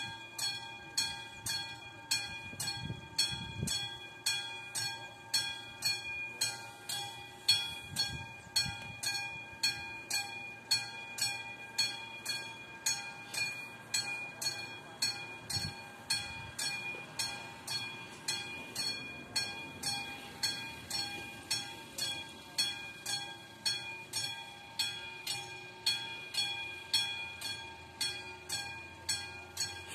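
Railway level crossing warning bell ringing in steady, evenly spaced strikes, about two a second, each strike ringing on briefly: the crossing is closed for an approaching train.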